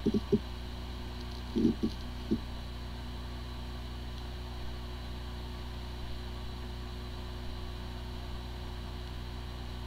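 Hard disk drive spinning with a steady hum and whine, with a few short low thumps in the first couple of seconds. It sounds like a healthy drive, but its disk firmware is corrupted, so the computer cannot detect it.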